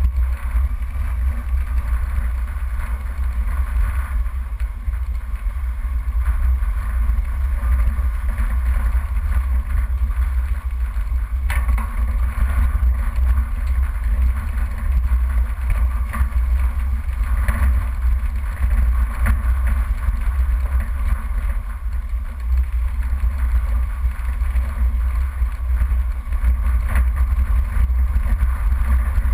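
Off-road 4x4 driving slowly over a rough dirt track: steady engine and drivetrain noise under a heavy low rumble, with scattered knocks and jolts from the bumpy ground, one sharper knock about halfway through.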